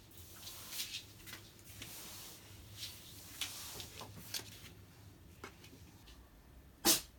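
Shiba Inu sneezing once, short and sharp, near the end, after several seconds of faint rustling and light clicks.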